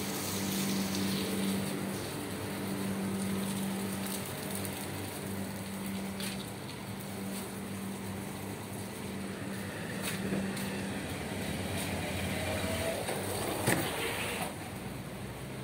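Vehicle traffic in heavy rain: a steady engine hum under a continuous hiss of rain and tyres on the wet road, with one short knock near the end.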